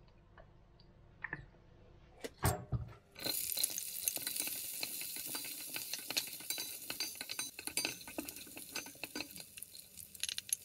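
A few knocks against a pot, then, about three seconds in, diced onion hits hot oil and sizzles steadily while a wooden spoon stirs it, clicking and scraping against the pot.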